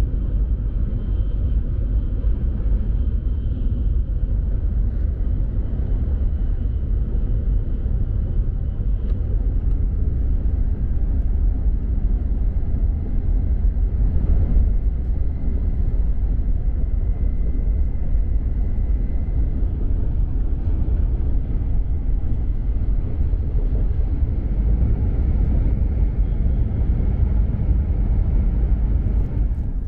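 E5 series Shinkansen train running: a steady low rumble with an even hiss over it and a faint high whine.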